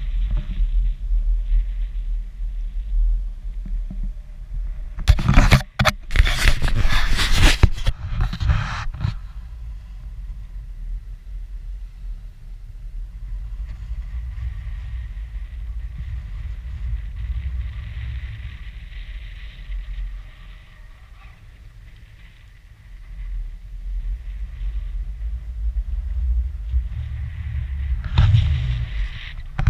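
Wind rumbling on an action camera's microphone, with louder buffeting gusts about five to nine seconds in and again near the end, and a lull in between.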